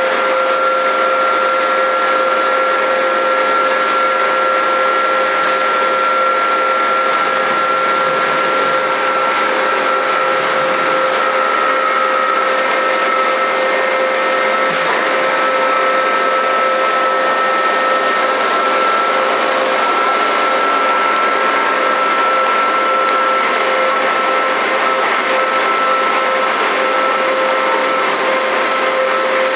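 Toyoda CNC lathe running steadily: a loud, even machine whine with two held tones, the higher one shifting slightly in pitch partway through.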